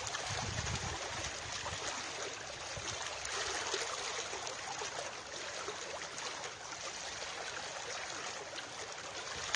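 Steady rush of running water, an even hiss without distinct splashes.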